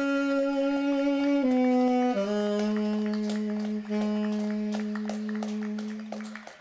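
Saxophone playing a slow falling phrase of three held notes, the last held for about four seconds and fading out near the end.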